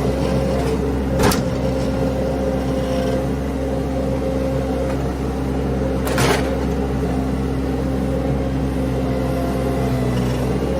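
An engine running at a steady speed, with a sharp knock about a second in and a short clatter about six seconds in.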